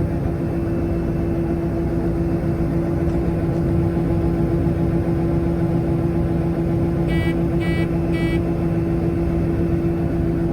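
John Deere 9760 STS combine running at a steady drone with a constant hum. About two-thirds of the way through, three short electronic beeps sound about half a second apart.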